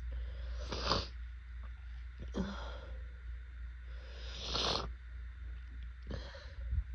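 A woman in a pollen-allergy fit sniffling and sneezing through a snotty nose: four short noisy bursts about two seconds apart, over a steady low hum.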